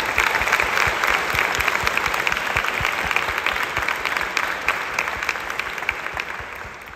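Audience applauding with steady, many-handed clapping that tapers off near the end.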